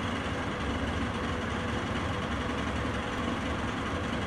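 Steady low engine-like rumble under an even hiss, with no clear change.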